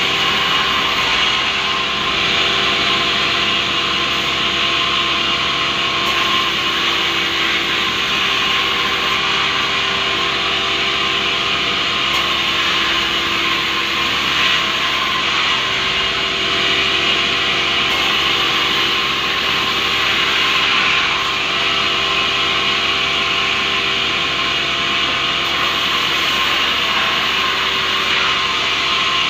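Sawmill band saw cutting lengthwise through a rubberwood log: a steady hiss of the blade through the wood over the machine's even hum.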